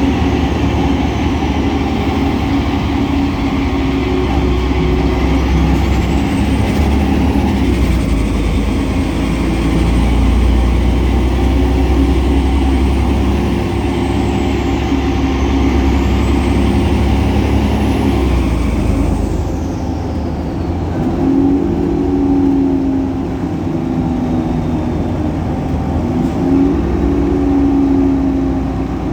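Solaris Urbino 18 articulated bus's DAF Paccar PR265 diesel engine running while the bus is driven, a deep steady drone with a faint high whine rising and falling. About two-thirds of the way through the high hiss and whine die away and a lower, slightly wavering engine hum carries on.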